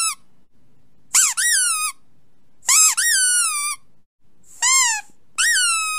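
Rubber squeaky dog toy squeezed again and again: a handful of high squeaks, some in quick short-then-long pairs, the last one long and drawn out.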